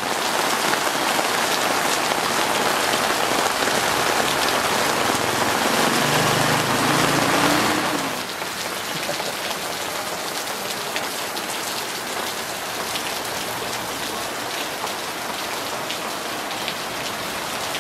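Heavy tropical rain pouring down, a dense steady hiss of falling water. It is heaviest for the first several seconds, then eases slightly and carries on evenly, with a brief low hum about six seconds in.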